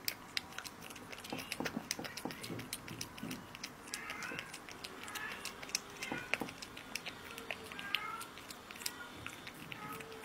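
A cat eating raw minced meat: many quick, irregular wet clicks of chewing, lip-smacking and licking.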